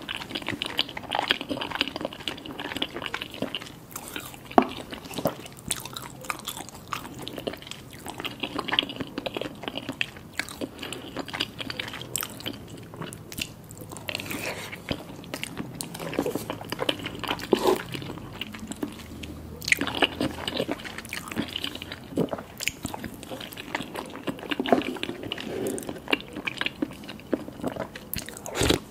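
Close-miked eating sounds: irregular biting and chewing with many sharp, wet mouth clicks and smacks.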